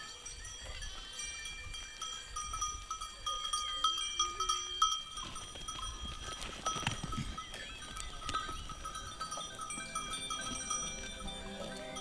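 Bells on a herd of goats and sheep clinking and ringing as the animals move, with a goat bleating now and then.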